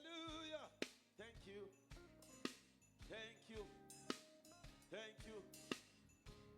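Faint music through a PA during a sound check: drum hits roughly every second and a half under a few held notes, with short rising-and-falling vocal calls.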